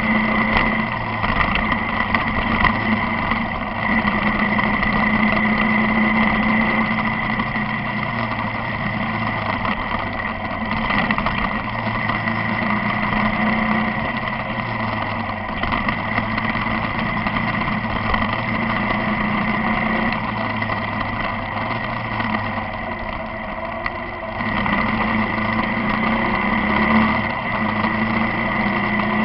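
A vehicle's engine running steadily on the move along a highway, easing briefly a little after twenty seconds in before picking up again.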